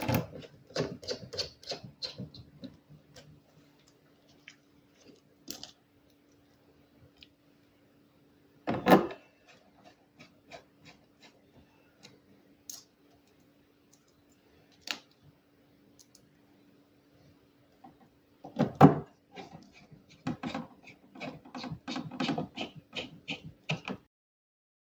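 Small screws being driven with a precision screwdriver through a keyboard PCB into its mounting plate: quick runs of small clicks and ticks as the screws turn, with scattered single ticks between and two louder knocks, about nine and nineteen seconds in.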